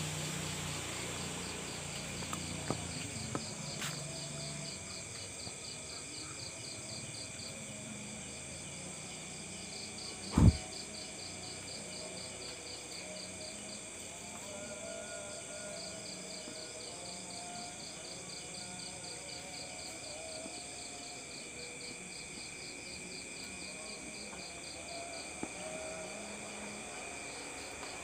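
Steady chorus of night insects such as crickets, with a high, fast-pulsing trill that drops out and returns. One loud, dull thump about ten seconds in, and a few faint clicks.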